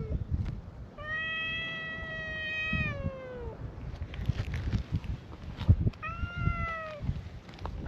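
Stray cats meowing: a long meow starting about a second in, held for over two seconds and falling in pitch at its end, then a shorter meow later on. Low rumbling noise runs underneath, with a sharp click between the two calls.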